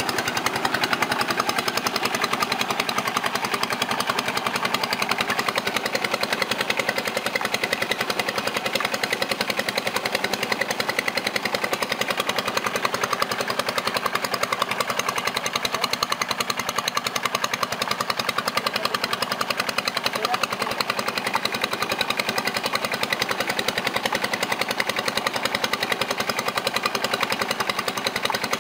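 Rice mill machinery running with a fast, even, steady clatter.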